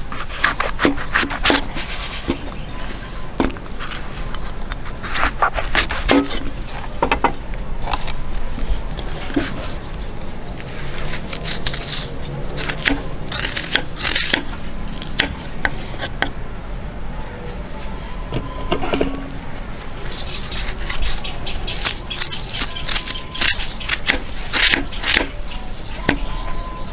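A knife cuts through a bitter gourd on a wooden chopping board, then a metal spoon scrapes the seeds and spongy pith out of the gourd halves. The sound is a run of irregular scrapes and taps.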